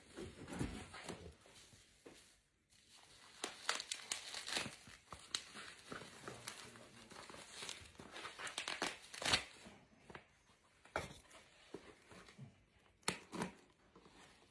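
Packaging being handled and opened: irregular crinkling and tearing rustles with sharp clicks and knocks, a short pause about two seconds in, and the loudest clicks around the middle and near the end.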